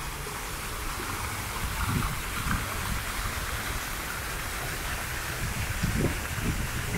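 Steady rushing hiss of running or splashing water, with an uneven low rumble underneath.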